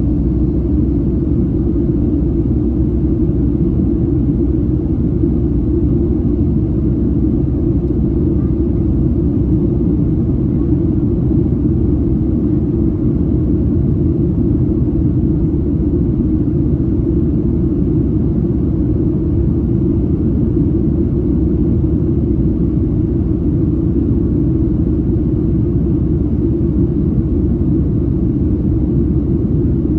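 Steady low cabin rumble of a Boeing 737-700 under way, heard from inside the passenger cabin: engine and airflow noise from its CFM56-7B turbofans, muffled and even, with no change in pitch or level.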